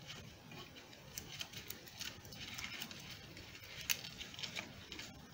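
Faint rustling of wrapping-paper ribbon and light clicks of dry twigs knocking together as a handful of sticks is gathered and tied into a bundle, with a few sharper ticks.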